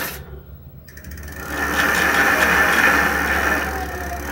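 Mountain bike drivetrain turned by hand: the chain running over the chainring and rear sprockets with a steady whirring, and the rear freewheel ratchet clicking rapidly as it starts, about a second in.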